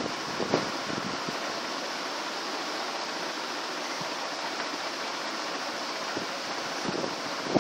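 Steady rushing background noise, with a brief soft knock about half a second in and a few more near the end.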